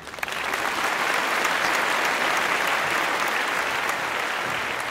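Applause from many people clapping, starting abruptly and holding steady.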